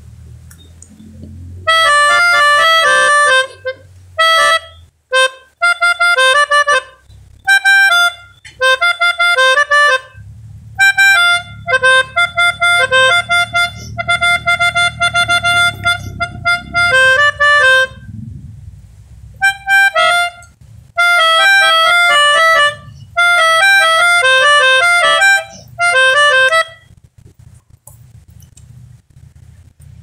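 A pianika (melodica) playing the 'telolet' bus-horn tune in short phrases of quick notes with pauses between them, starting about two seconds in and stopping a few seconds before the end.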